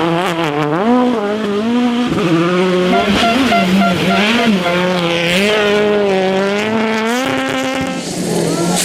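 Rally car engine driven hard on a special stage, its pitch climbing and dropping again and again as it shifts gears and lifts off for corners, with a few sharp cracks about two to three seconds in.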